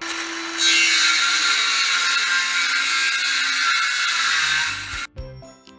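Handheld power tool working a wooden board: a loud, steady high-pitched whir that gets louder about half a second in and cuts off abruptly about five seconds in. A short bit of jingly music follows near the end.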